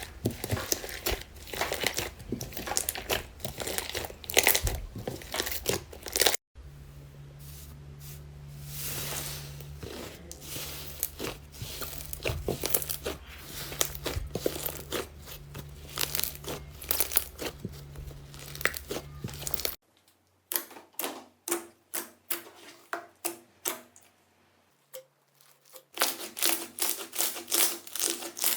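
Hands squishing, poking and stretching slime, giving dense sticky crackles, pops and clicks across several short clips with abrupt cuts between them.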